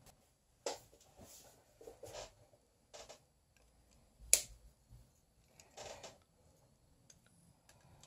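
Faint scattered metal clicks and short scrapes as Engineer pliers grip and turn the pivot screw of a Leatherman Charge multitool during disassembly, with one sharp click about four seconds in.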